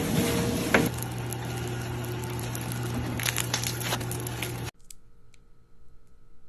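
Slime being squeezed and pulled, a dense squishing, crackling sound with scattered clicks, which cuts off abruptly about two-thirds of the way through to a faint steady hum.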